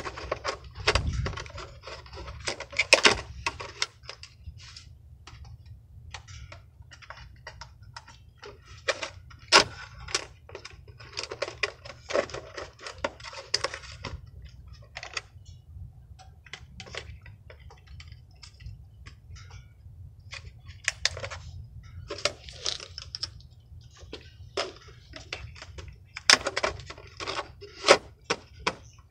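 Hands handling a Traxxas Bandit RC buggy: irregular small plastic clicks and taps, a few louder knocks, over a steady low hum.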